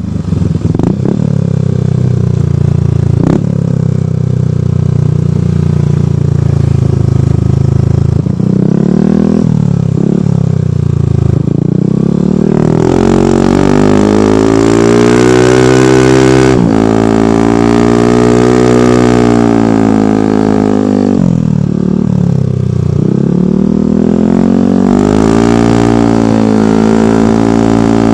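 Yamaha NMAX v2 scooter's single-cylinder engine through a Rev aftermarket exhaust: it idles steadily with a bassy note for about eight seconds, then is revved again and again, with several long holds at high revs that drop back down between them.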